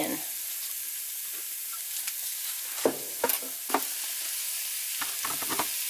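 Mushrooms frying in butter in a skillet, giving a steady sizzle, with a few light clicks and knocks about three seconds in and again near the end.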